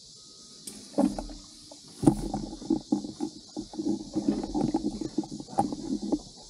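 Beta 250RR two-stroke dirt bike engine giving a short burst about a second in, then catching and running unevenly for about four seconds before cutting out abruptly.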